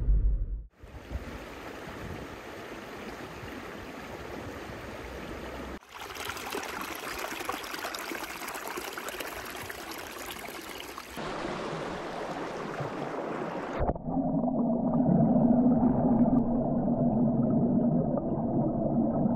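A small stream running, heard in several short cuts that change its sound abruptly. In the last few seconds it is louder, with a steady low hum under the rush of water.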